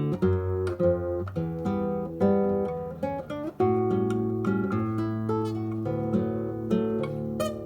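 Acoustic guitar playing a choro-maxixe: quick plucked melody notes that ring over a moving bass line.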